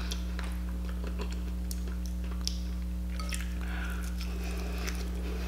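Close-up wet eating sounds: sauce-covered chicken wings being torn apart by hand and chewed, with scattered faint clicks and squishes over a steady low hum.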